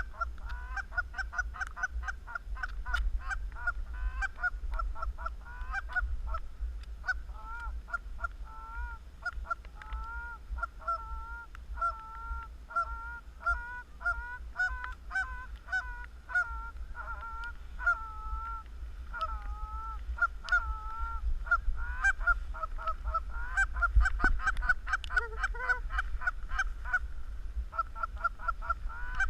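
A flock of Canada geese honking: many overlapping calls in quick succession, thickest near the start and again in the last few seconds.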